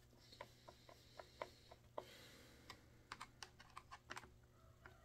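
Faint, irregular small clicks of a screwdriver turning small screws into a Poulan chainsaw, over a faint steady low hum.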